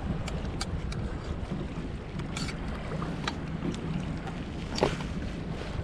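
Wind buffeting the microphone over water moving against a kayak, with a scatter of light clicks from fishing gear being handled and one louder knock about five seconds in.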